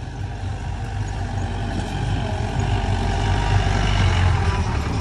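Mahindra jeep's engine running as the jeep drives slowly up a dirt track towards the listener, getting louder as it approaches.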